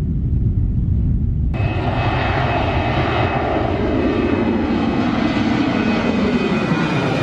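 Jet airliner engines running close by, a loud rushing noise with a high whine. For the first second and a half there is only a low rumble, typical of strong wind on the microphone; then the sound jumps abruptly to the full engine noise.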